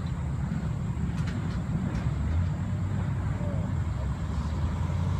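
Engine of a 5-ton six-wheel-drive off-road truck running steadily under way, a deep continuous rumble.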